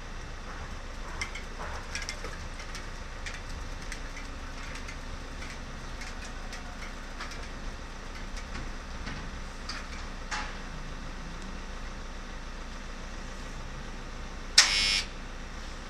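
Light clicks and clinks of tools being handled in a tray, over a steady low rumble. Near the end comes one sudden loud burst of noise lasting about half a second.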